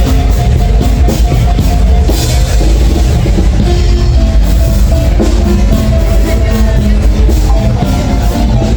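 Rock music with a driving drum kit and heavy bass.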